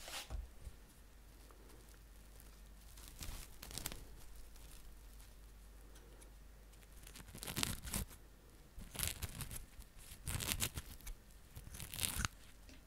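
Plastic cling film being pulled and torn off its roll close to the microphone, in several short ripping, crinkling bursts.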